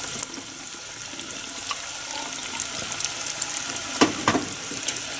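Chicken karaage deep-frying in a steel pot of hot oil: a steady sizzle with many fine crackling pops. Two sharp taps stand out about four seconds in.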